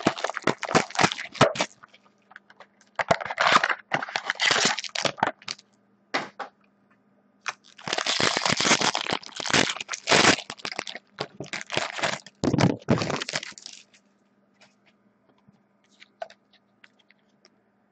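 Clear plastic wrap from a trading-card box being torn off and crumpled by hand, crackling and crinkling in three bursts, the longest lasting about six seconds. A few light clicks follow near the end.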